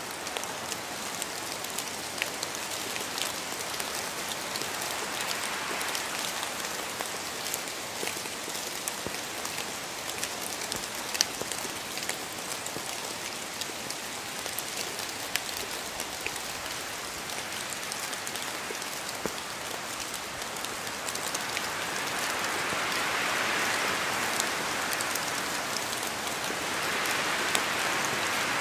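Steady rain falling, with many distinct drops pattering on a surface; it grows louder from about two-thirds of the way in.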